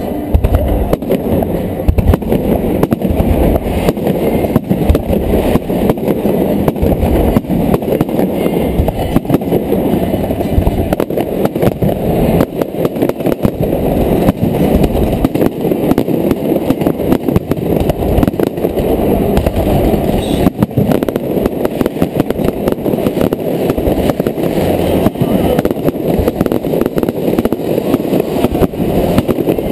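Fireworks display going off in a rapid, continuous barrage of bangs and crackles, heard dull and muffled with little treble.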